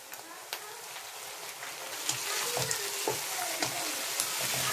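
Chopped tomatoes frying with onions and spices in hot oil in a non-stick wok. The sizzle grows louder about two seconds in, and a spatula scrapes and clicks against the pan as the tomatoes are stirred in.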